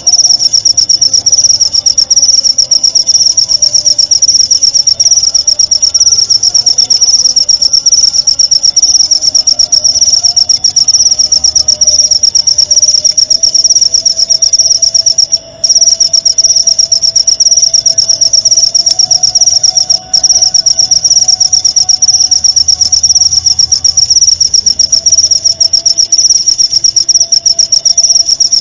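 Cricket song: a loud, continuous high-pitched trill of very rapid pulses, broken by two brief gaps, one about halfway through and a shorter one a few seconds later.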